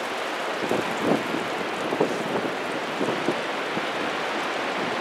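Steady wash of ocean surf on the beach, with several short thumps in the first three seconds.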